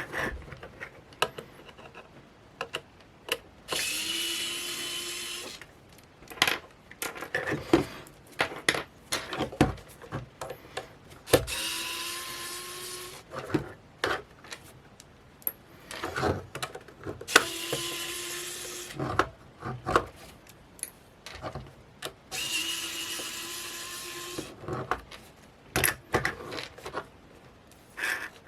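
Small electric screwdriver running in four short runs of about two seconds each, undoing screws in the camera's plastic case. Between the runs come clicks and the handling of small parts.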